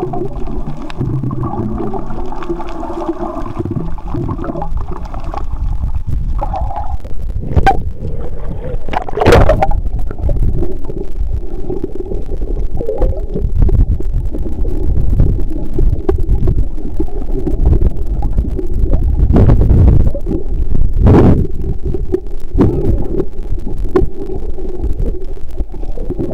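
Underwater noise picked up by a camera held beneath the sea surface: a steady low rumble with gurgling water, broken by a few short, sharp swishes or knocks.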